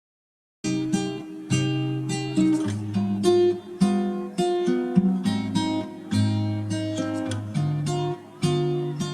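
Background music of plucked and strummed acoustic guitar, starting after a moment of silence about half a second in.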